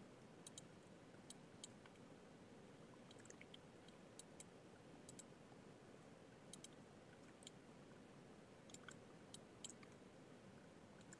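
Faint, irregular clicks of a computer mouse and keyboard, a dozen or so scattered over low steady hiss.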